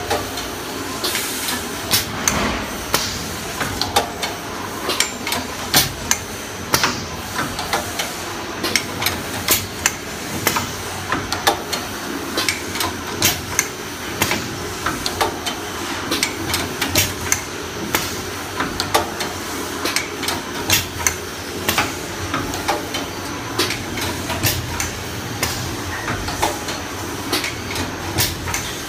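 Paper baking cup forming machine running, its forming press knocking in a regular run of sharp metallic clacks, more than one a second, over a steady mechanical hum.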